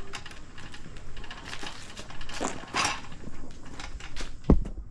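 Metal clanks, scrapes and rattles of hitch hardware and hand tools being handled while a trailer hitch is fitted, with one loud knock about four and a half seconds in.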